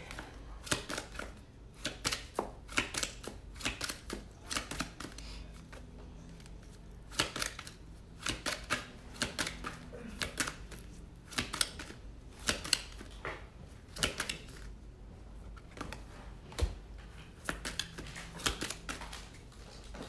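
A deck of oracle cards being shuffled by hand: bursts of quick clicks and flicks of card on card, with short pauses between the bursts.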